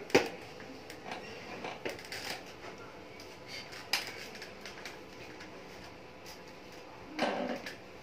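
Cockatiels pecking and stepping on a tiled floor: scattered light clicks and taps, a sharp one at the very start. A longer scuffle comes about seven seconds in.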